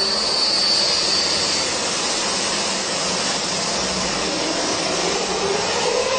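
Airbus A380 jet engines running with a loud, steady rush, a high thin whine fading away in the first second or so and a lower tone rising near the end.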